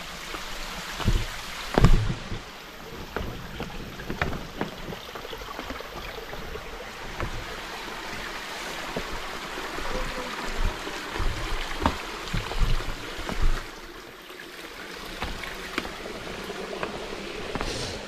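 Irregular footsteps and knocks of people walking down a trail, over a steady rushing noise, with low rumbles of wind on the microphone.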